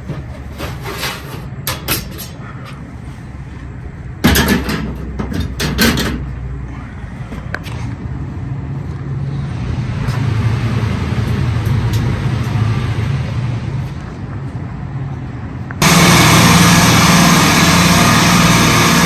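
Frozen food case parts being set back in place by hand: a few clicks and knocks, then a louder clatter of metal knocks about four seconds in, over the case's steady low hum. Near the end a loud, steady din of a supermarket refrigeration compressor rack running cuts in abruptly.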